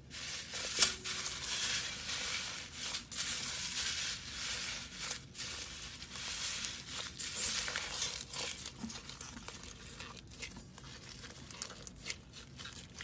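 Foam beads crackling and crunching as blue slime is pressed, kneaded and squeezed into a pile of them, a dense run of small crackles. The crackling thins out over the last few seconds.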